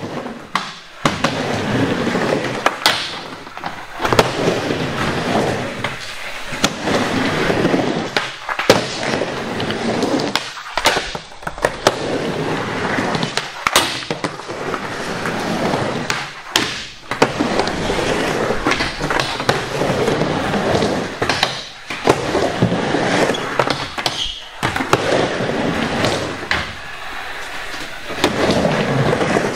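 Skateboard wheels rolling back and forth across a wooden mini ramp, swelling and fading with each pass, with frequent sharp clacks and slams of the board hitting the ramp.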